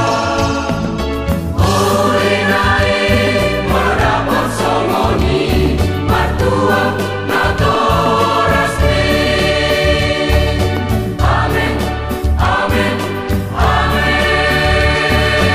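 Church choir singing a wedding song, its phrases breaking off and starting anew every couple of seconds over a steady low bass.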